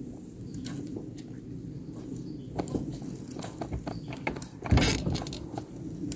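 Fishing rod and reel being worked as a lure is retrieved: scattered small clicks and rattles over a low steady rumble, with one brief loud rustling burst about five seconds in.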